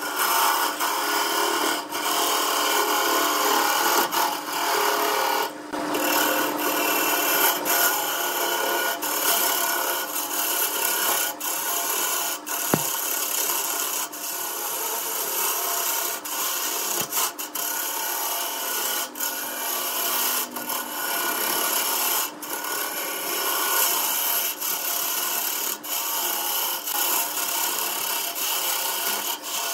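Turning gouge cutting into a large wood blank spinning on a lathe: a continuous scraping hiss of wood being shaved away, with a few very brief breaks now and then.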